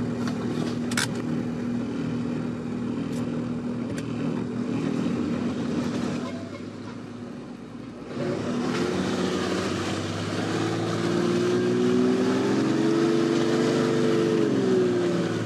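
4x4 off-road vehicle's engine running steadily, then revving up about halfway through, holding the higher revs for several seconds and easing back down near the end. A sharp click about a second in.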